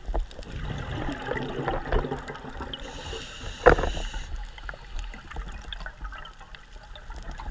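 Scuba diver breathing through a regulator, heard underwater: a gurgle of exhaled bubbles, then the hiss of an inhalation with one sharp click in the middle of it.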